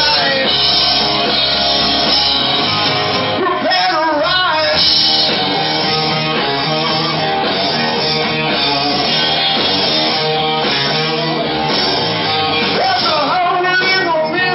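Live rock band playing loud: electric guitars, bass guitar and drums, with a singer's voice coming in at times.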